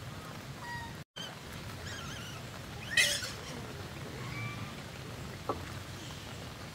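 Short bird chirps and peeps over a steady low background hum, with one loud, sharp squawk about three seconds in and a small click later. The audio drops out briefly about a second in.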